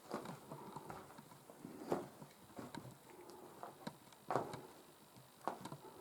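Slow footsteps with scuffing, a step every second or two, the clearest about two and four seconds in.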